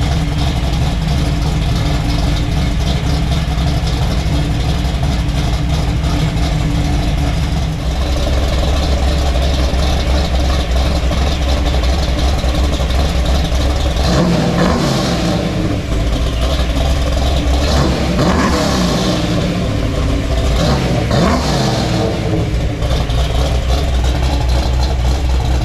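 Car engine running through a custom dual exhaust, holding a steady low note, then revving up and down a few times about halfway through.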